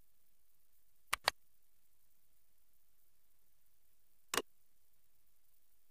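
Computer mouse clicks against near silence: two quick clicks about a second in, and another click a little after four seconds.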